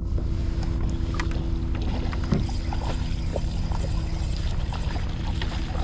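Water lapping against a plastic kayak hull under a steady low rumble of wind, with scattered light clicks and knocks.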